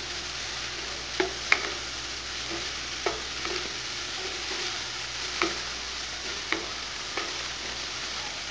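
Chopped snake gourd sautéing with a steady sizzle in a kadai while a wooden spatula stirs it, knocking against the pan about six times at uneven intervals.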